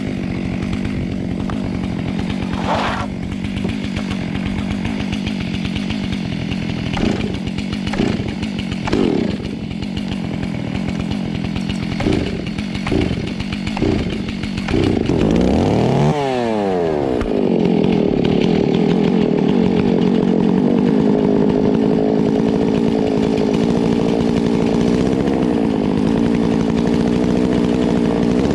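Chainsaw running while cutting into a large hollow tree trunk, its pitch dipping and climbing again about halfway through, then held steady and louder.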